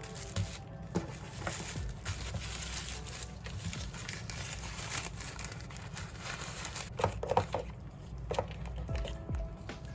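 Quiet lo-fi background music over packing handling sounds: light crinkling of packaging and small taps and knocks.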